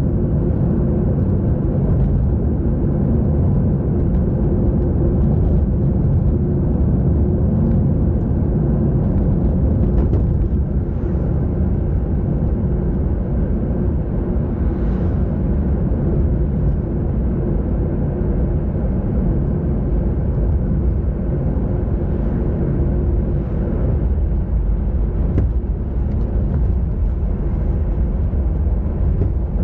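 Steady low rumble of wind and road noise on a moving camera's microphone while riding along a road, with a few faint ticks.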